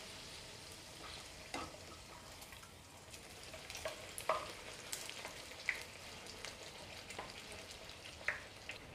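Bhatura dough deep-frying in hot oil in a kadhai: a faint, steady sizzle with a few scattered sharp crackles and pops, as a slotted steel spoon ladles hot oil over the top of the bread to make it puff.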